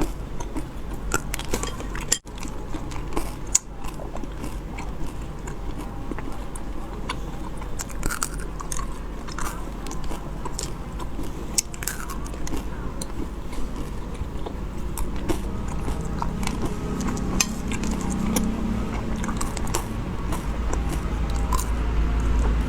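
Close-miked chewing of a chewy, gum-like candy: wet mouth sounds with scattered short clicks and smacks.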